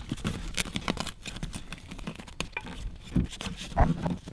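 Heat-insulation padding being handled and pressed into place: irregular crinkling and rustling with small knocks, and a louder thump just before the end.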